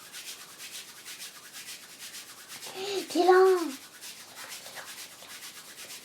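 Palms of the hands rubbed briskly together as body percussion, an even swishing of about four to five strokes a second. About three seconds in, a short voice sound with a rising then falling pitch sounds over it.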